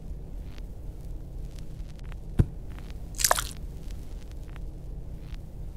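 Cartoon sound effect of a small finger puppet falling off a bed into a tin bowl of muck: a single knock about two and a half seconds in, then a short wet squelch just under a second later, over a low steady background hum.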